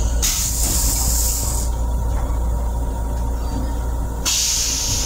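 M7 railcar toilet flushing: two bursts of hissing spray into the stainless-steel bowl, the first about a second and a half long and the second starting about four seconds in, over the steady low rumble of the moving train.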